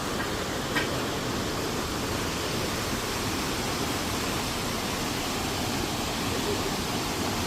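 Waterfall rushing steadily: a dense, even hiss of falling water, with a faint tick about a second in.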